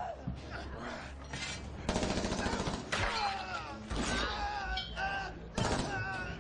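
Several bursts of rapid gunfire, starting about two seconds in and coming roughly a second apart, with men's voices shouting between the bursts.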